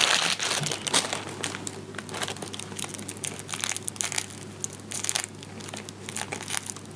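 White paper packet crinkling and rustling as it is opened and onion sets are handled inside it: irregular crisp crackles, loudest at the very start.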